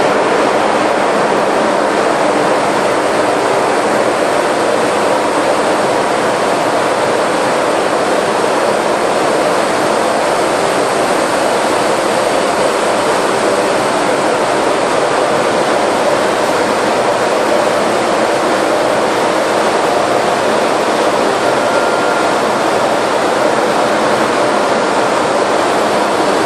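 Running machinery in a large container ship's engine room: a loud, even, unbroken din, with a faint steady high whine above it.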